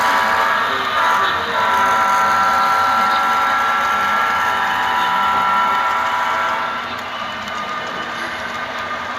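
Model train running, giving a steady pitched sound that breaks briefly about a second and a half in and stops about seven seconds in, leaving a quieter running noise.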